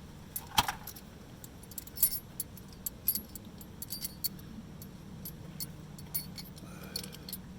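Small metal tools and parts clinking and rattling as they are handled, a scatter of sharp clinks with the loudest about half a second in and about two seconds in, over a steady low hum.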